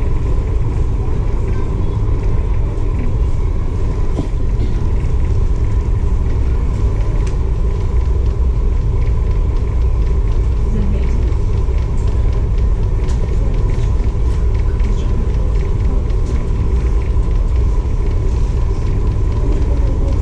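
Staten Island Ferry under way, heard on board: a steady low rumble of the boat's engines and motion, with a faint steady hum and a few light clicks.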